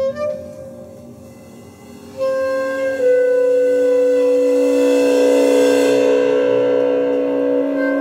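Clarinet and bowed cymbal in a free-improvised duet: a quiet opening, then about two seconds in the clarinet goes into long, loud held notes over a steady ringing drone, with a bright shimmer swelling in the middle.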